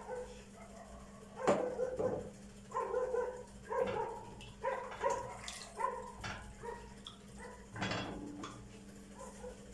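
A dog barking, a series of short barks at about two a second through the middle. A sharp knock about a second and a half in and another near the end, a utensil struck against a pot.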